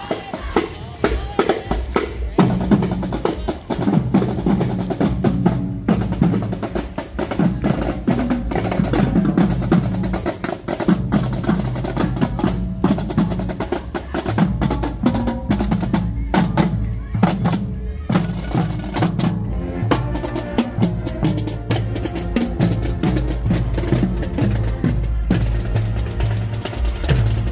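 Marching band percussion going by: snare drums playing rolls and rapid strikes over a bass drum, with band instruments playing along.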